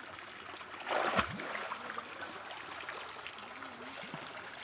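Water trickling and splashing in a shallow muddy ditch, with one louder splash about a second in as water is scooped and thrown.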